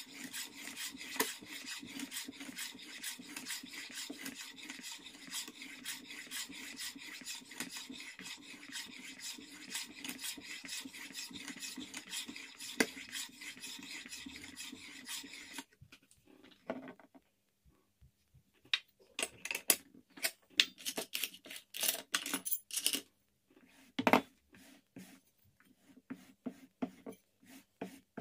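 A sharpening stone on a guided jig rubbed rapidly back and forth across a plane iron's bevel: a continuous scrape of steel on stone. About halfway through the stroking stops and scattered clicks and knocks of the jig and blade being handled follow.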